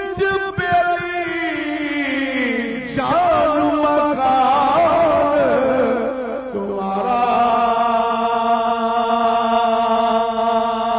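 A man singing Punjabi verse in long, wavering melismatic runs, then holding one long steady note from about seven seconds in.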